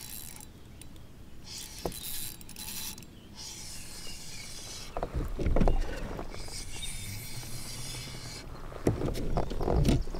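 Spinning reel cranked in spells, with short pauses, while a hooked fish is played on rod and line from a plastic kayak. Low thuds of knocks against the hull about halfway through and again near the end are the loudest sounds.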